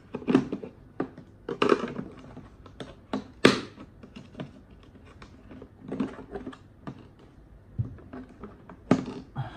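Screwdrivers being pulled from and pushed back into the clip slots of a moulded plastic tool case: irregular hard clicks and knocks of plastic handles and steel shafts, a few of them much louder.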